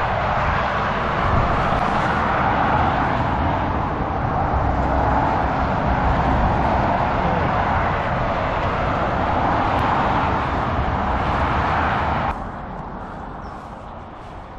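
Dense motorway traffic passing below a footbridge: a steady rush of tyres and engines from both carriageways. About twelve seconds in it drops suddenly to fainter roadside traffic.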